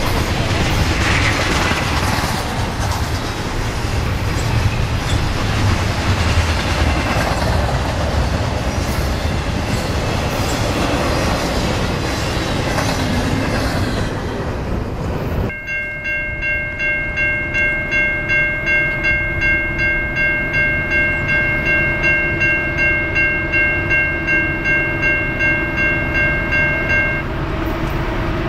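Double-stack container freight train rolling past with a steady rumble and wheel clatter for about the first fifteen seconds. After an abrupt change, a railroad grade-crossing bell rings with regular strikes about twice a second, then stops shortly before the end.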